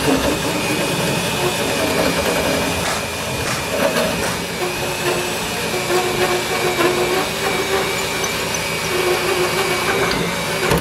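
A power tool running continuously, with a steady high whine over a rougher mechanical noise.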